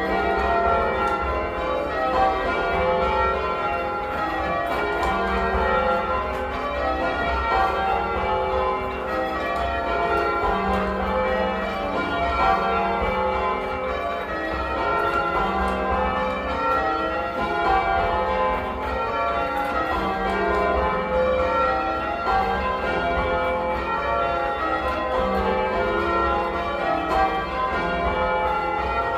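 Change ringing on a ring of eight church bells, the 1954 Gillett and Johnston bells, rung in a steady, even rhythm of strikes with each bell's mellow tone ringing on over the next.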